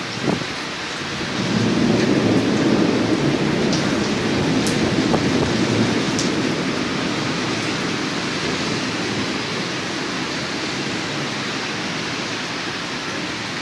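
Thunder rumbling after a lightning flash: a low roll that swells about a second and a half in and slowly dies away over several seconds, over the steady hiss of heavy rain.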